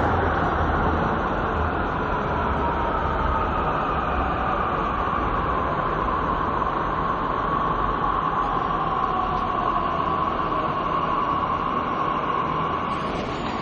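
Metro train running, heard from inside a carriage: a steady rumble and hiss with a motor whine that falls a little in pitch over the first few seconds, then holds steady.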